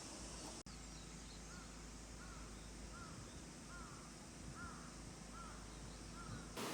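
A bird calling: a series of about seven short, evenly spaced calls that rise and fall in pitch, over a steady high-pitched insect drone.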